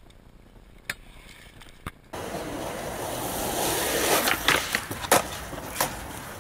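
Skateboard wheels rolling on concrete, with several sharp clacks from the board, the loudest a little after five seconds. It comes in suddenly about two seconds in, after a quieter stretch holding two faint clicks.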